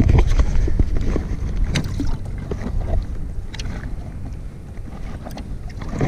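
Wind buffeting the microphone as a loud low rumble, with scattered small clicks and knocks on and around a kayak on the water.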